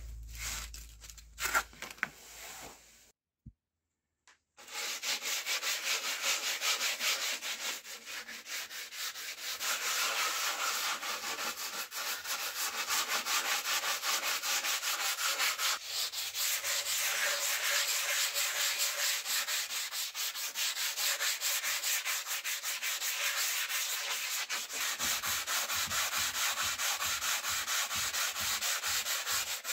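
A sanding sponge is rubbed by hand over a plywood speaker cabinet in quick back-and-forth strokes, a steady abrasive scratching. A few light handling taps come before it, and the sanding starts after a brief silent gap about four seconds in.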